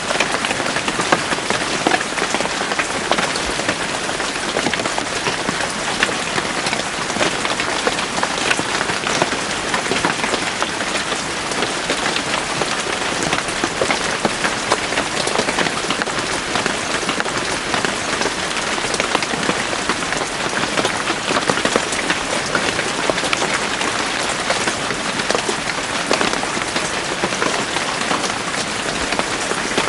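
Steady rain falling in a forest, a dense hiss of many drops pattering on leaves and the ground.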